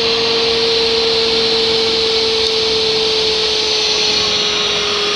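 Electric pipe threading machine running steadily on RGS steel pipe, a constant motor whine over a hiss, its pitch sagging slightly near the end.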